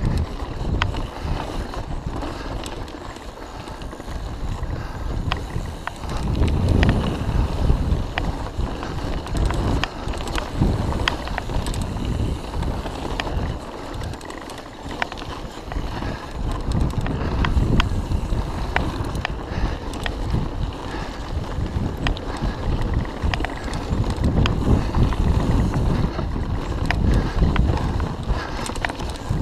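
Mountain bike riding down dirt singletrack: tyre rumble and wind on the microphone, with frequent sharp clicks and knocks as the bike rattles over bumps. Louder and busier from about six seconds in and through the second half.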